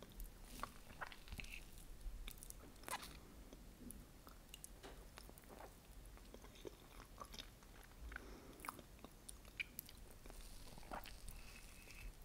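Close-miked eating of New York cheesecake with caramel sauce: soft chewing with scattered sticky, wet mouth clicks.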